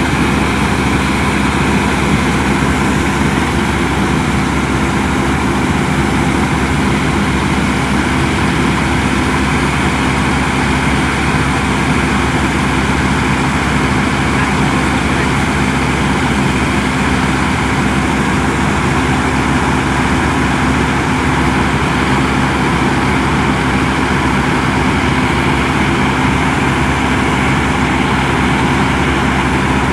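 Engine of a rice-harvesting machine running steadily at a constant speed, with no change in pitch or level.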